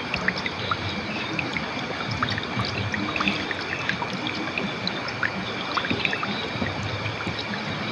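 River water flowing and gurgling steadily, with many small splashes and trickles, and a faint steady high tone behind it.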